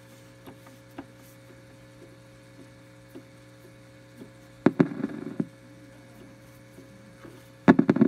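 A GE solid-state clock radio switched to AM gives off a steady low hum, described as "a little hum" that the owner isn't sure is anything to worry about. A few faint clicks come as its front knobs are turned, with a louder click and a short burst of noise about five seconds in. Louder sound starts just before the end.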